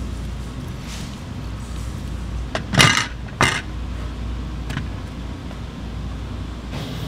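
Cooking noise: a steady low hum, with two short, loud clattering noises about three seconds in and a smaller click a little later.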